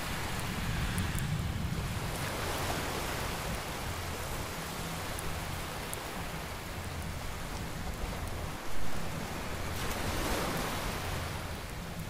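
Steady rush of beach surf with wind buffeting the microphone, swelling twice, and faint crackles from a fire of dry twigs burning in a pan. A brief loud bump about nine seconds in.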